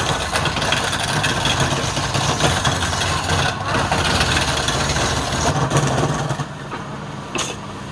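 Wood lathe motor running with a steady low hum while a hand-held turning chisel cuts a spinning wooden spindle, a rough, steady scraping of the blade on the wood. The cutting noise gets quieter about six and a half seconds in.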